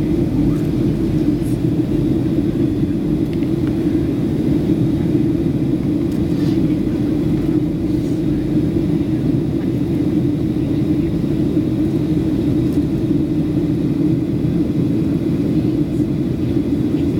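Steady cabin rumble of a Boeing 737-700 on approach: engine and airflow noise heard from inside the passenger cabin, even and unbroken.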